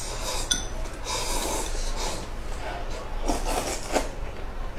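Thick stir-fried rice noodles being slurped up, in about three long, noisy slurps with short pauses between.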